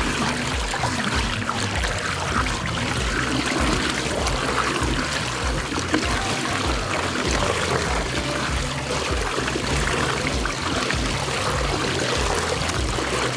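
Water swirling and draining down a whirlpool vortex: a steady, even rush of moving water.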